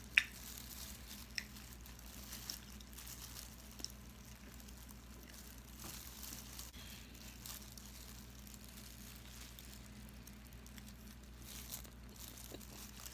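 Quiet eating sounds: chewing with faint crackles and a few short, sharp clicks, the loudest just after the start.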